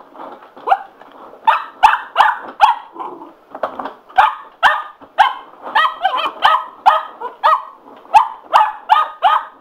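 Cocker spaniel puppy barking over and over: short, sharp barks about two a second, in runs with a brief pause about three seconds in.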